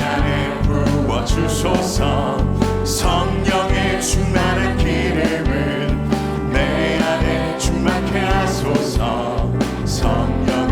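Worship band playing a contemporary praise song with singing voices over steady bass and drums, cymbal strikes recurring throughout.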